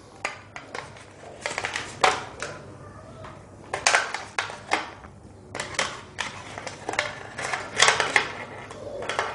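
White packaging tray and earphone cable being handled while the neckband earphones are pulled out: irregular clusters of small crackles and clicks.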